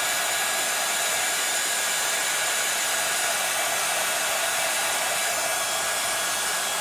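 Embossing heat tool blowing hot air onto a candle, a steady even hiss from its fan and airflow, the heat softening the wax surface.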